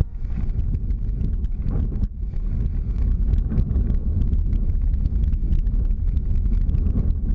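Wind buffeting an action-camera microphone while kiteboarding: a heavy low rumble with rapid crackling, dipping briefly about two seconds in.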